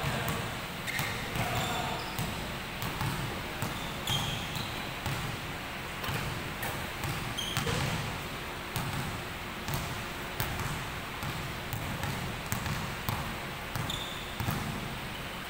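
Basketball dribbled and bouncing on an indoor gym floor, a low thud about once or twice a second, with a few short high sneaker squeaks.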